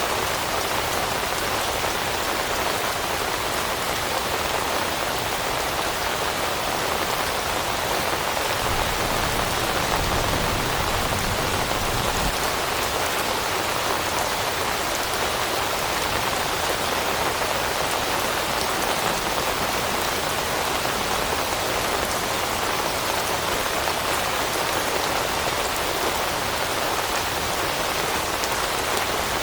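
Steady rain falling on leaves, an even dense patter. A low rumble rises briefly near the middle and cuts off after a few seconds.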